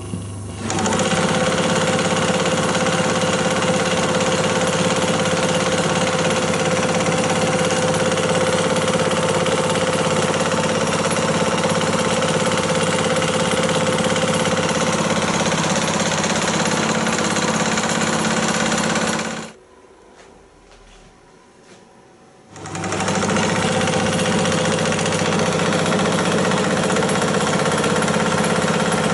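Antique belt-driven 35mm projector mechanism running steadily, its two-bladed shutter and red/green colour wheel spinning, at about 16 frames a second with no film threaded. It is a steady mechanical whir and clatter with a hum running through it. The sound breaks off for about three seconds roughly two-thirds through, then comes back.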